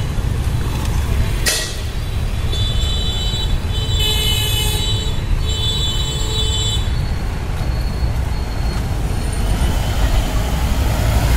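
Street traffic noise with vehicles passing, under a steady low rumble. A sharp click sounds about a second and a half in, then a high-pitched horn toots in three short bursts between about two and a half and seven seconds in.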